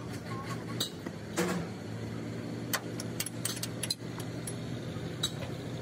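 A machine's steady low hum with about ten sharp clicks and light knocks scattered irregularly over it.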